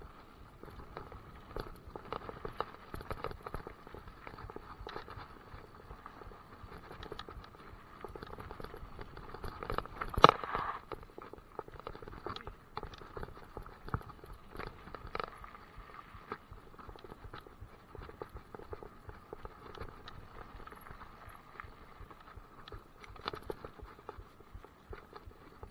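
Mountain bike clattering and rattling over a rough dirt forest trail, heard through an action camera mounted on the handlebars: irregular knocks from the bike over bumps, with one hard knock about ten seconds in.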